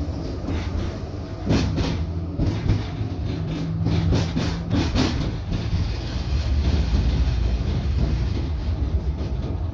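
V3A-93 articulated tram running along the line, heard from inside the car: a steady low rumble with a hum. Between about one and a half and five and a half seconds in comes a run of sharp clacks from the wheels on the track.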